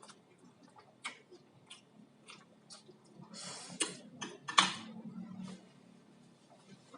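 Close-miked chewing with wet mouth smacks at a steady pace, a short breathy noise in the middle, and one sharp click a little past halfway.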